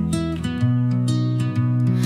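Soft, slow music with acoustic guitar, notes plucked and gently strummed over held low chords.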